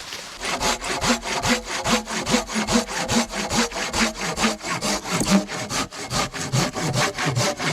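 Hand saw cutting through a dead, dry fallen branch, with steady back-and-forth strokes in an even rhythm.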